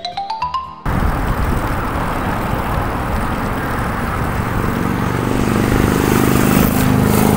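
A short jingle of about ten quickly rising notes, then steady street traffic noise, with a motor vehicle's engine hum growing louder in the second half.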